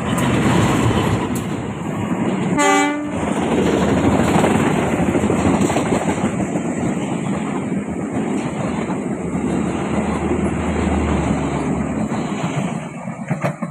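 Diesel-hauled passenger train passing close by. The locomotive gives one short horn blast about two and a half seconds in, and then the coaches rumble and clatter past on the rails.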